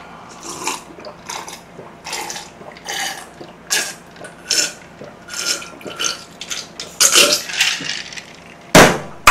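Close-miked mouth sounds of someone eating and drinking: a run of short, irregular smacks and gulps, about two a second, with a louder one near the end.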